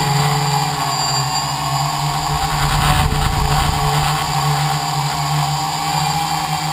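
Electric motors and propellers of a KK-board tricopter running steadily in flight, heard close-up from a camera mounted on the craft. The hum holds a near-constant pitch with only slight wavering.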